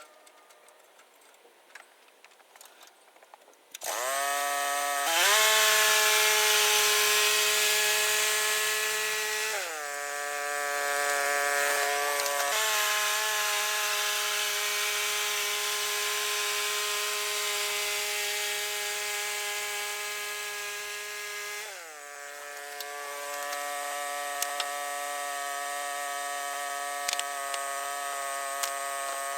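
Woodland Mills HM126 band sawmill running: about four seconds in its engine speeds up with a rising whine, and the band blade cuts through the western red cedar log with a loud hiss for several seconds. The mill runs on steadily, its pitch dipping and climbing again about two thirds of the way through, then cuts off abruptly near the end.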